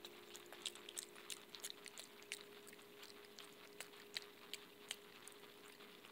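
Opossum chewing its food close to the microphone: a run of faint, irregular wet clicks, several a second, over a steady low hum.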